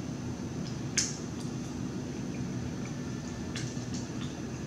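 A person chewing food, with a few short, wet mouth smacks; the loudest comes about a second in. A steady low hum runs underneath.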